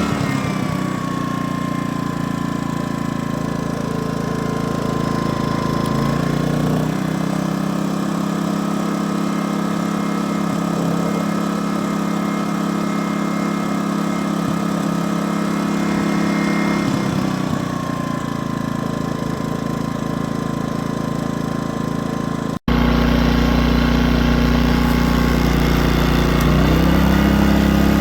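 Pulsar G2319N 2,300-watt inverter generator's small gas engine running, its speed stepping up about seven seconds in and back down about ten seconds later. After a sudden break near the end it runs louder and lower, rising again just before the end.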